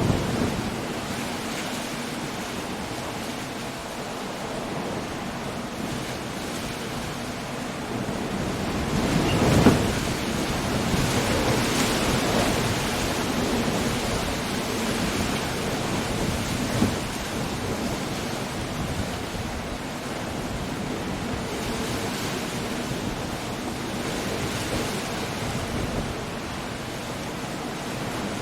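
Coastal storm ambience: a steady wash of rain, wind and surf. A surge builds to a loud crash about ten seconds in, with a brief sharper hit later on.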